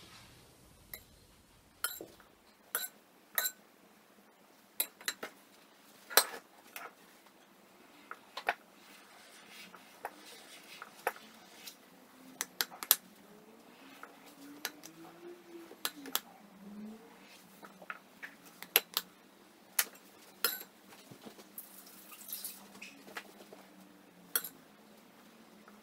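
A metal cake spatula and a plastic scraper clicking and tapping against the cake board while cream frosting is smoothed onto a cake. The clicks are sharp and come at irregular intervals, a few every couple of seconds, with faint scraping between them.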